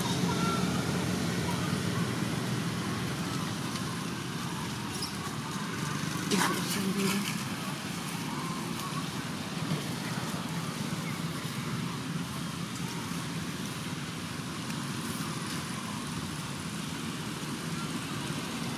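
Steady outdoor background noise: a constant hiss with a low engine-like hum beneath it, and a brief sharp sound about six seconds in.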